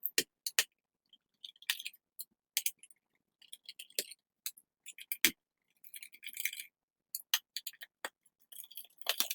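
Small, sharp metal clicks and clinks, irregular and several to the second, of a screwdriver working tiny screws out of a laptop's plastic bottom case and the loose screws being handled.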